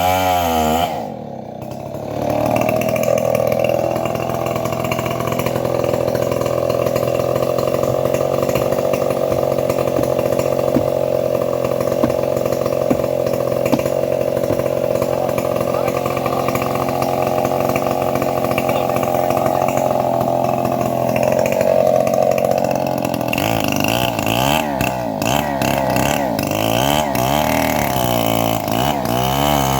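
Two-stroke chainsaw running, likely cutting through teak. It dips briefly about a second in, then holds a long steady pitch under load, and in the last several seconds its pitch rises and falls rapidly as the throttle is worked.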